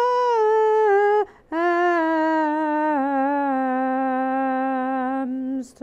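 A person's voice singing long, drawn-out notes rather than speaking. One held note lasts about a second; after a short break comes a longer note that drops lower about halfway through and holds.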